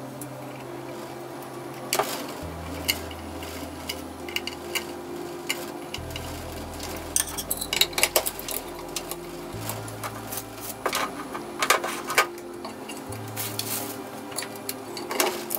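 Clicks, knocks and clatter of hard plastic and metal parts being handled as an Inspex II inspection camera is fitted onto its stand, most frequent in the second half. Background music with slow bass notes runs underneath.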